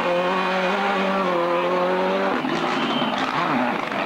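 Ford Escort RS Cosworth Group A rally car's turbocharged four-cylinder engine held at high revs at a steady pitch, then lifting off about two seconds in, with the revs dipping and rising unevenly.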